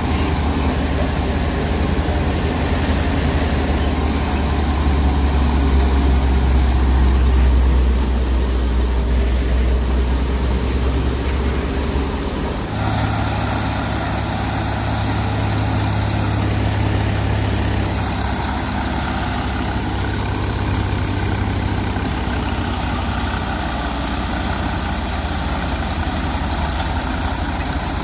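Tractor-driven Punni Tohana multi-crop thresher running steadily while threshing chickpeas, powered by a New Holland 3600 tractor's diesel engine working under load: a constant loud mechanical hum with a deep drone. The low hum shifts abruptly about 13 seconds in.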